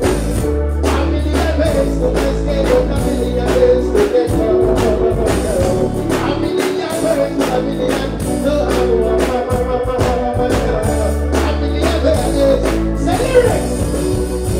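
Live reggae music through a loud stage PA: a steady drum beat and deep bass line, with a male singer's voice over it at times.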